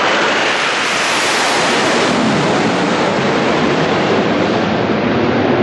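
A formation of Aermacchi MB-339 jets, each with a single turbojet, passing low overhead: a loud, steady jet roar that grows duller after about a second as the formation moves away.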